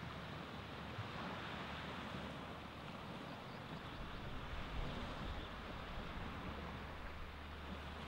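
Baltic Sea surf washing onto a beach, a steady rushing wash of waves with a low rumble underneath.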